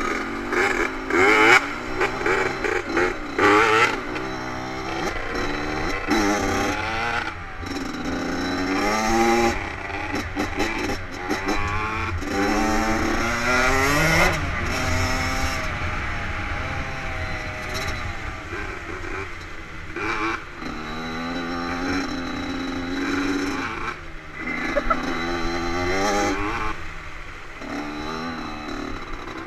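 Dirt bike engine revving hard under acceleration, its pitch climbing and dropping back again and again as the gears change, over a low wind rumble on the microphone and scattered knocks.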